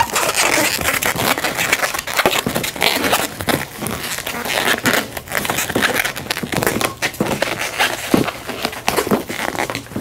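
Inflated latex 260 modelling balloons rubbing against each other and against fingers while their knotted ends are tied together: a steady crinkly crackle and rubbing, broken by many short clicks.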